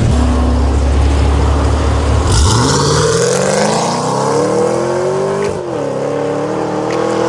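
V8-swapped Mazda RX-8's engine: a steady low drone heard from inside the cabin, then, from outside, the car accelerating away at full throttle, its note rising until the automatic transmission shifts up about five and a half seconds in, then pulling again.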